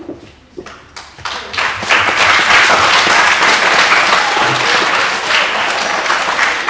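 Audience of schoolchildren applauding. A few scattered claps build to full applause about a second and a half in, which begins to thin near the end.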